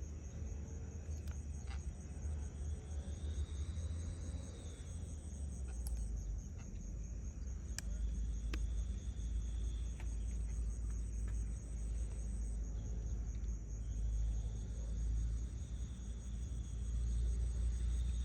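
Insects chirping in a steady, rapidly pulsing high trill, over a constant low rumble.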